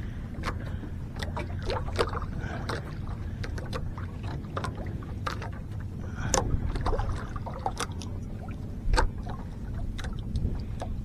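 Steady low rumble aboard a small fishing boat at sea, with many small clicks and knocks from handling gear and the catch. Louder knocks come about six seconds in and again about nine seconds in.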